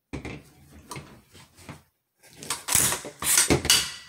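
Action of an American Tactical Omni Hybrid polymer AR pistol worked by hand. Light clicks and rattles come first, then from about halfway several louder metallic strokes as the charging handle is pulled back and the bolt carrier slides and snaps forward. The action is stiff from friction, and a cleaning has helped it only a little.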